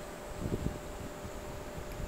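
Lull between fireworks: a steady low rumble and hiss, with soft low thumps of distant fireworks about half a second in.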